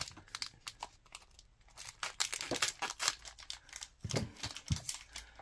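Trading cards being handled and laid down on a playmat: a quick scatter of soft clicks and rustles of card stock, with a couple of dull low knocks about four seconds in.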